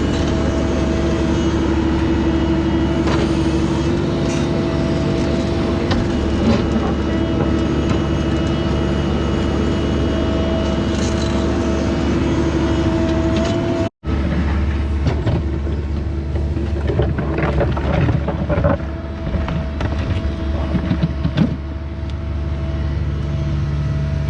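Mini excavator engine running steadily at an even pitch. After an abrupt cut about 14 seconds in, it keeps running with irregular knocks and clanks.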